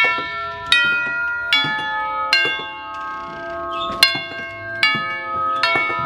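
Tubular doorbell chime ringing an eight-note tune: metal tubes struck in two phrases of four notes, each note ringing on, with a short pause between the phrases.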